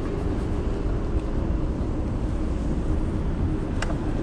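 Wind buffeting the microphone over the rolling noise of a Segway Ninebot F2 Pro electric kick scooter on asphalt as it slows down, with a single sharp click near the end.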